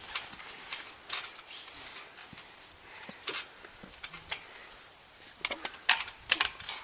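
Irregular sharp knocks and metallic clinks, a few scattered at first, then a quick cluster in the last two seconds.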